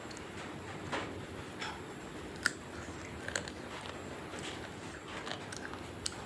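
A person chewing food close to the microphone, with scattered short wet mouth clicks and smacks, the loudest about two and a half seconds in.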